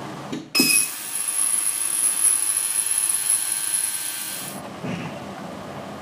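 Ultrasonic cleaner running with the grinder housing submerged in its tank: a steady, sizzling hiss with a high whine on top. It starts abruptly about half a second in and cuts off after about four seconds.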